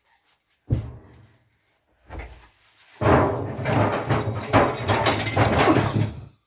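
A single bang about a second in, then split firewood knocking and clattering as logs are dropped and stacked on a wooden floor.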